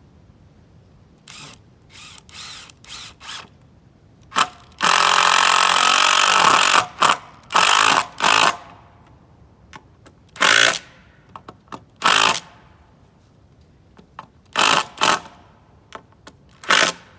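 Handheld power tool run in repeated bursts: a few short blips, then one longer run of about two seconds, then more short pulls of the trigger through the rest.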